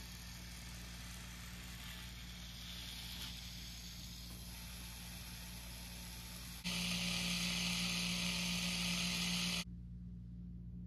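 Small electric motor and plastic gears of a K'nex toy car whirring, over a steady low hum. About two-thirds of the way in the whir turns suddenly louder for about three seconds, then cuts off abruptly.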